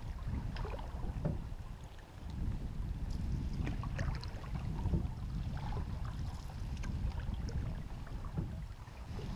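A canoe being paddled on calm water: soft paddle strokes and drips with scattered small clicks, over a steady low rumble of wind on the microphone.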